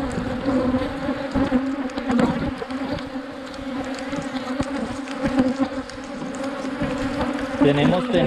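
Steady buzzing hum of a colony of Africanized honey bees swarming over an opened hive, with scattered light clicks.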